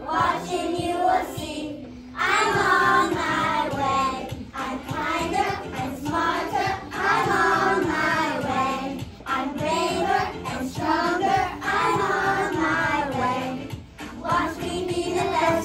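A group of preschool children singing a song together in sung phrases with brief pauses between them.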